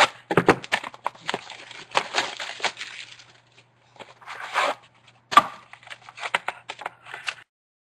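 Trading-card box packaging being opened by hand: crinkling wrapper and cardboard handling, with irregular sharp clicks and knocks. It cuts off suddenly near the end.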